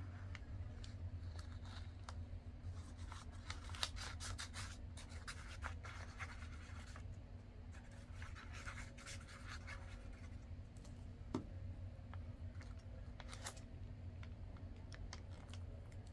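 Faint rustling and scratching of a strip of lined writing paper being handled while liquid glue is run along it from a squeeze bottle and the strip is pressed down onto a paper page, in two stretches of soft scratchy sound with a single soft knock and a click later on.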